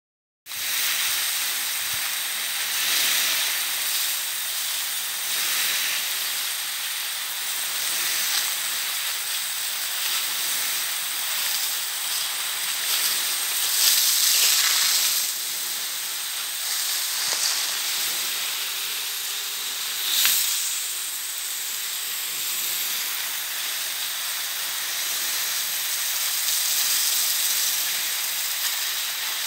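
Jet sprinkler throwing a long stream of water into tree foliage: a steady hiss of spray. It swells louder a few times, most strongly about fourteen seconds in and briefly again near twenty seconds.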